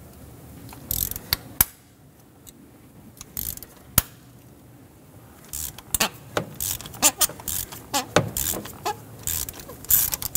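Ratchet clicking as a socket on a long extension unscrews a spark plug from a Ford 5.4-litre V8's cylinder head. A few separate clicks at first, then quick, repeated ratcheting strokes from about halfway in.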